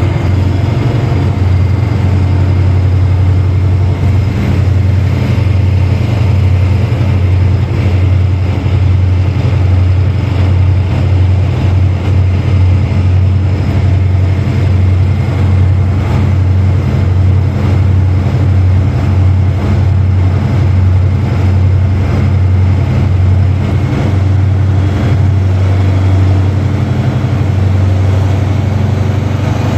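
Railway locomotive running close by: a loud, steady low hum with a dense, rapid run of knocks and clatter over it.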